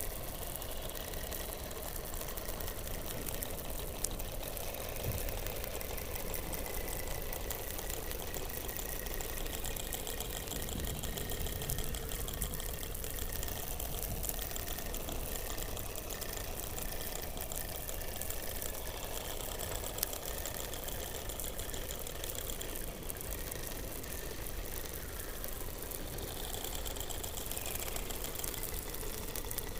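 Underwater recording from beneath the Antarctic ice: a steady hum and hiss with several faint drawn-out tones, rows of quick trilling pulses in the middle, a falling glide near the end and a few sharp clicks.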